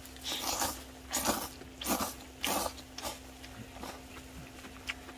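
Slurping hot ramen noodles from a small steel bowl: a run of about five short, noisy slurps in the first three seconds, then a few fainter ones. A steady low hum runs underneath.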